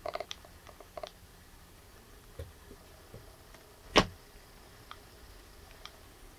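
A cat's forepaw swat landing with one sharp thump about four seconds in, amid a few faint clicks and taps.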